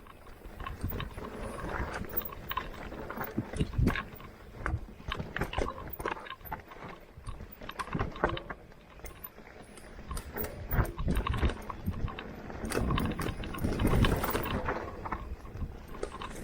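Mountain bike riding a dirt trail: irregular clicks, knocks and rattles of the bike and tyres over bumps, over a low rumble of wind on the microphone, busiest in the last few seconds.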